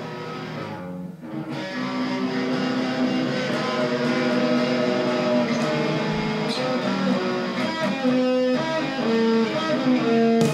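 Electric guitar playing a melody of held, sustained notes, swelling in loudness over the first couple of seconds.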